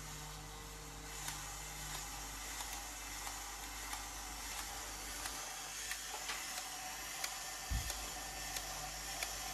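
Faint, irregular light clicks of metal Meccano parts as the model Unimog's steering wheel and cab levers are worked by hand, over a steady hiss, with one low thump near the end.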